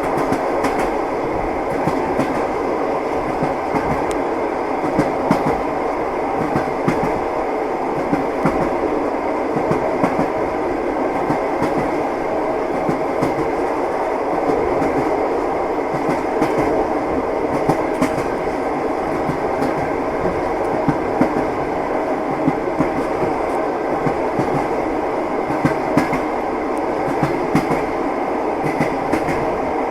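Train wheels clacking: a steady rumble of a train running along the track, with sharp knocks of the wheels every second or two as they cross the rail joints.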